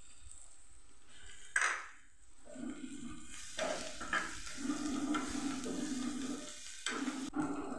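Metal spoon stirring and scraping a small tadka pan of onion, garlic, green chillies and fresh coriander frying in hot oil, with a steady sizzle under the scraping. A sharp clink about one and a half seconds in, and the stirring starts about a second later.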